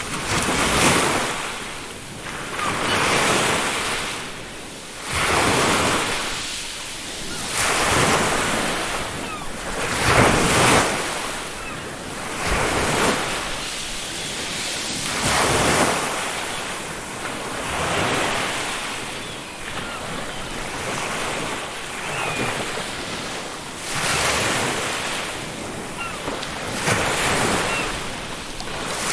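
Ocean waves breaking on a beach, the surf rising and falling in repeated surges every few seconds.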